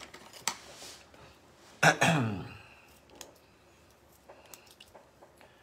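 A short vocal sound, like a throat clearing, about two seconds in. After it comes faint pencil scratching on a stencilled board.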